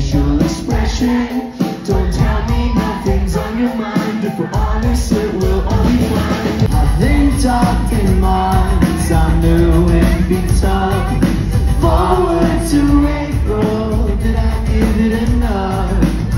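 Indie rock band playing live, heard from the audience: male lead vocal over electric guitars, bass and drums. The music cuts abruptly to a different song a few seconds in.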